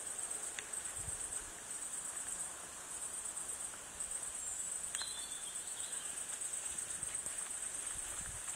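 Crickets chirping in a steady, high-pitched chorus, with one brief higher chirp about five seconds in.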